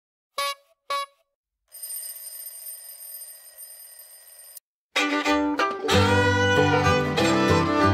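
Outro sound track: two short pitched tones, then a steady, fainter ringing for about three seconds. About five seconds in, a lively country-style tune on fiddle and guitar starts and is the loudest sound.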